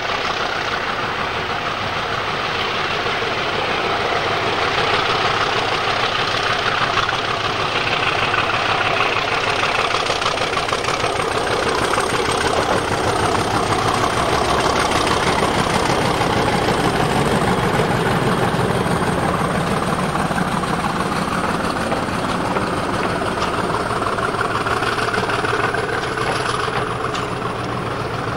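A mainline diesel-electric locomotive runs past hauling a passenger train, its engine under power and growing louder as it comes level. Then the coaches roll by, with light clicks of wheels over the rails near the end.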